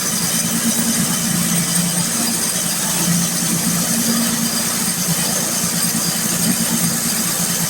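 Engine-driven TA Schmid sawmill running steadily at high revs, its saw cutting through an oak log.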